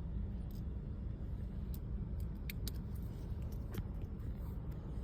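Steady low rumble inside a car, with a few faint clicks and ticks scattered through the middle.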